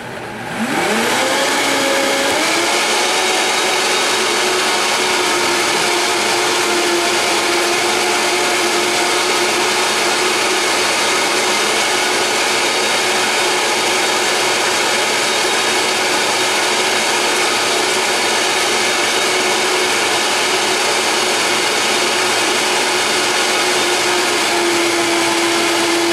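Vitamix blender motor starting and winding up in pitch over about two seconds, then running steadily at high speed as it blends kale, fruit and peanut butter with a little water into a green smoothie.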